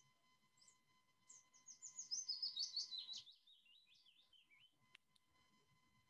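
Willow warbler song: one phrase of quick, high notes that falls steadily in pitch over about three seconds, starting about a second in.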